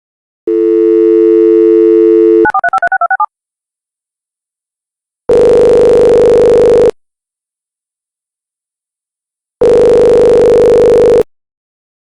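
Telephone call: a steady dial tone for about two seconds, then a quick run of touch-tone dialing beeps, then the line ringing twice with a long gap between rings as the call goes through.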